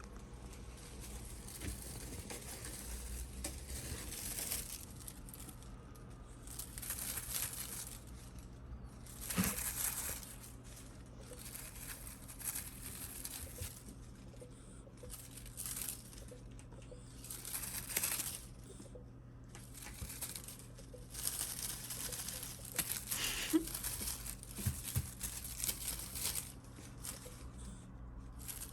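Bursts of rustling and crinkling, each about a second long and coming every few seconds, from a kitten playing with a toy.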